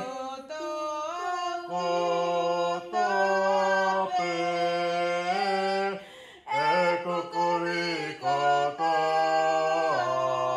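A man singing unaccompanied in a low voice, holding long notes and sliding between them, with a short break about six seconds in.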